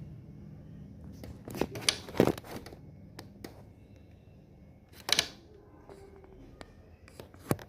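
A handful of sharp clicks and knocks, spread out and irregular, over a low steady hum, the sort of handling noise made working on a split AC's indoor unit.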